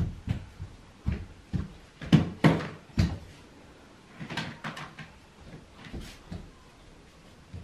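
A small child's footsteps and stomping on a hard floor: a string of irregular thumps and knocks, loudest about two to three seconds in.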